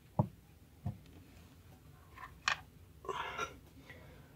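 A few sharp clicks and light knocks from a brass mechanical clock movement being handled, with a short rustle about three seconds in.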